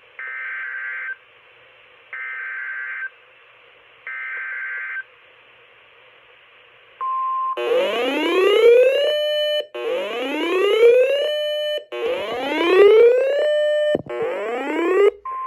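Emergency Alert System SAME header: three one-second bursts of warbling digital data tones, a second apart. Then a short steady beep and four loud synthesized rising sweeps about every two seconds, each climbing in pitch and then holding, an electronic alert tone ahead of a new severe thunderstorm warning.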